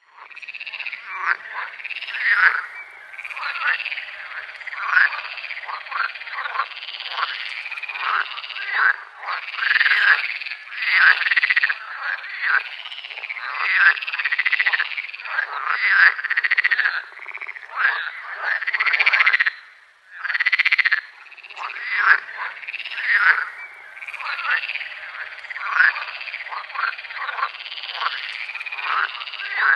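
A chorus of many frogs calling, with dense overlapping croaks and chirps that rise and fall in loudness. The chorus briefly thins out about twenty seconds in.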